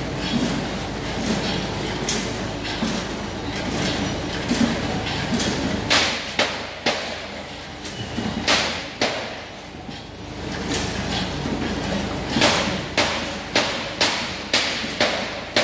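Vegetable packing line running: a steady machine hum under sharp knocks and thuds, which settle into a quick regular run of about two knocks a second near the end.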